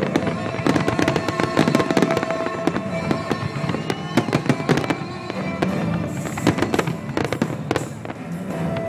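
Fireworks display: a dense, irregular run of bangs and crackling pops with no let-up.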